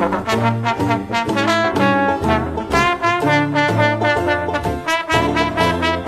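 Instrumental New Orleans-style jazz, with brass led by trombone and trumpet playing over a steady bouncing beat and low bass notes.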